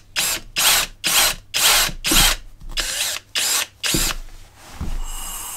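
Cordless drill with a thin bit boring a small hole into the top of a Harley-Davidson Milwaukee-Eight dipstick handle, the hole for a vent tube. The drill runs in short bursts about twice a second for about four seconds, then gives a quieter steady whir near the end.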